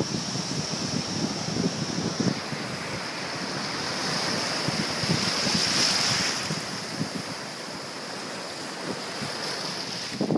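Small surf breaking and washing up a sandy beach, a steady rush that swells about halfway through as a wave breaks close by.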